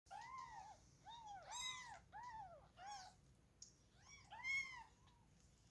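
Kitten meowing repeatedly: about seven short, high-pitched meows, each rising then falling in pitch.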